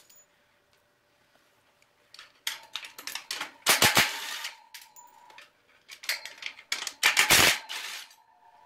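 Cordless impact driver running in short rattling bursts against a steel loading ramp, with the motor's whine under the hammering. The bursts start about two seconds in, and the two loudest come near four and seven and a half seconds.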